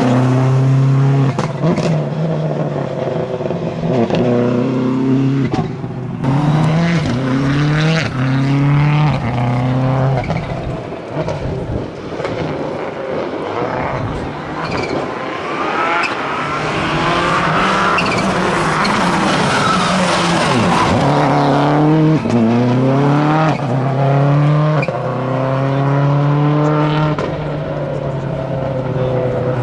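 Classic rally car engines revved hard through the gears at speed. The pitch climbs with each gear and drops at each shift. The engine noise eases about a third of the way in, then builds again with more gear changes.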